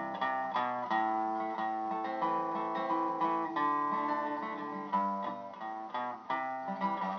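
Wood-bodied resonator guitar played alone, strummed and picked chords in a steady rhythm with no singing.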